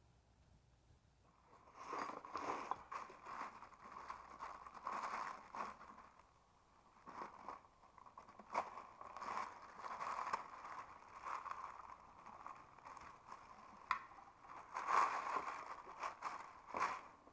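A thin plastic bag crinkling and rustling in the hands as a part is unwrapped from it. It starts about a second in and goes in fits and starts, with a short lull around six seconds in, a few sharp clicks, and the loudest rustling near the end.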